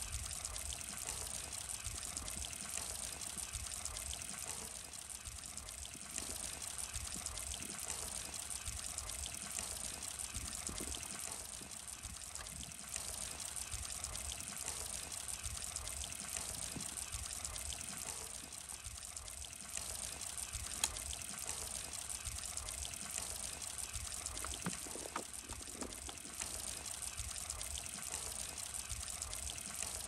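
Steady trickling of running water, with a low rumble underneath.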